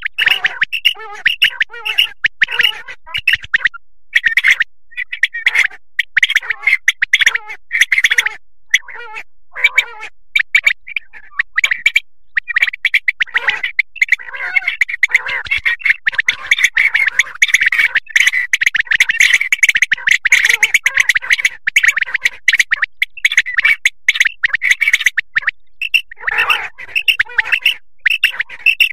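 Common quail calling: short, sharp calls repeated over and over. Through the middle stretch many calls overlap into a dense chatter, and they thin out again near the end.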